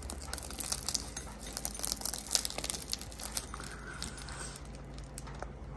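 Crisp, flaky crust of a baked pork bun crackling and crunching as it is torn open by hand, a quick run of small sharp crackles that thins out near the end. The crust is still crisp after cooling for half an hour.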